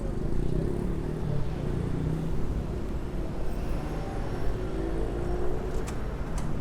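Heavy city street traffic: vehicle engines running and passing in a dense, steady low hum. A couple of brief sharp clicks come near the end.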